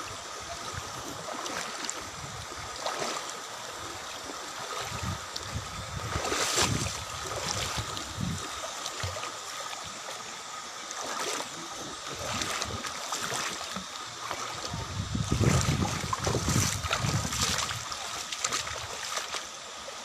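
Shallow stream water running over stones, with splashing that comes and goes as a small child paddles and kicks through it, loudest about fifteen to seventeen seconds in.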